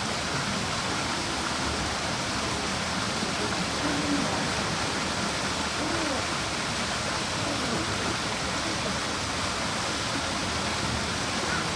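Steady rushing noise at an even level, with faint distant voices underneath.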